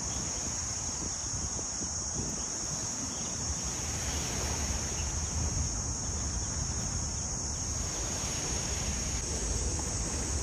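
Wind buffeting the microphone in gusts, with small waves washing onto a sandy beach and a steady high-pitched drone underneath.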